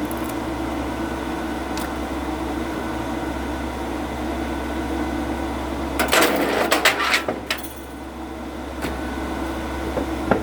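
Oak firewood splitting: a cluster of sharp cracks and knocks about six seconds in as the wood gives way, over a steady machine hum.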